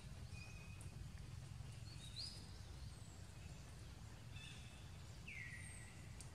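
Faint, high-pitched animal calls over a low steady rumble: a few short whistles and chirps, one rising about two seconds in and one falling about five seconds in.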